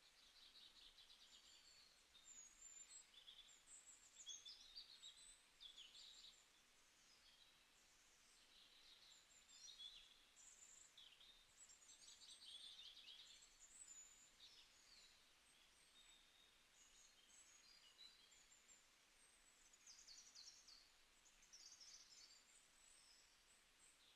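Faint birdsong: many short chirps and quick twittering calls, high-pitched, coming and going, over a soft hiss.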